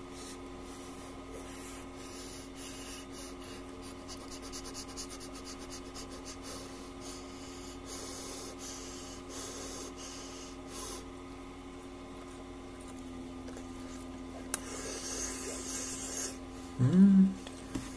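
Faint rubbing and rustling over a steady electrical hum, with a click and a short burst of noise a little after the middle and a brief voiced 'mm' near the end.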